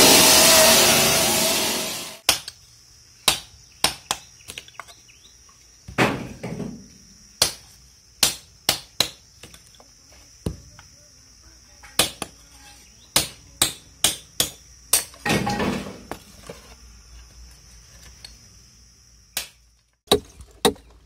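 Water-cooled stone-cutting saw cutting a slate slab with water spraying, stopping abruptly about two seconds in. Then sharp, irregular knocks of a steel hand tool chipping and trimming the edges of slate tiles, about one to two strikes a second, with a couple of longer scraping sounds between them.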